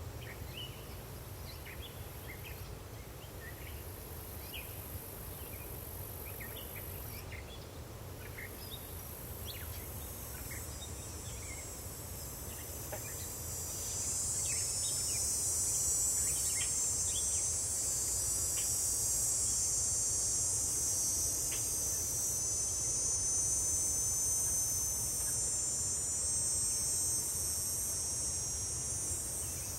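Forest ambience of insects trilling steadily and high. About halfway through, a louder insect buzz swells in and holds, over scattered short chirps and a steady low rumble.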